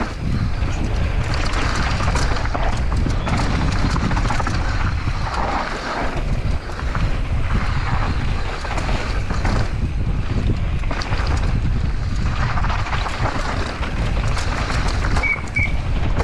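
Wind rushing over an action camera's microphone on a downhill mountain bike at speed, with knobby tyres rolling over dirt and the bike clattering and knocking over bumps. Two short high squeaks near the end.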